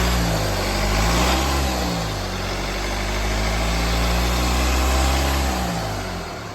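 Mercedes E250 CDI four-cylinder turbodiesel being revved: two short blips of throttle, then a longer held rev that falls back to idle near the end. Freshly rebuilt after a seized piston, it runs without the knocking it had before.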